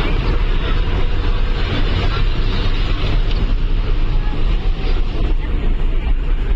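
Steady, loud rumble and road noise of a moving vehicle.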